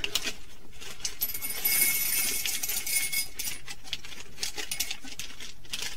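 Jelly beans poured from a bag into a jelly bean dispenser, rattling and clicking against it, with a bright rush of pouring for about two seconds starting about a second in.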